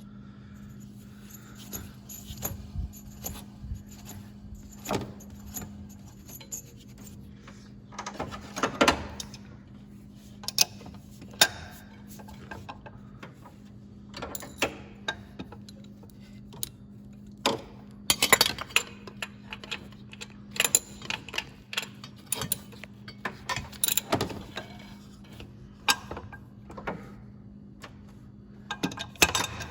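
Metal hand tools clinking and rattling against engine parts as the engine fan is fitted, in irregular clicks with louder clusters of clanks about 9, 18 and 24 seconds in. A steady low hum runs underneath.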